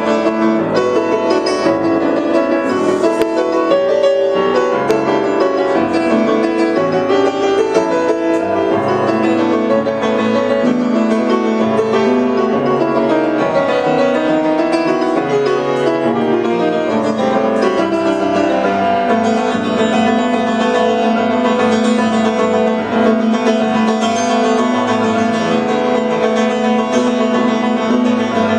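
Jazz piano trio playing live: a grand piano leads with a busy, moving line over double bass and drum kit with cymbals.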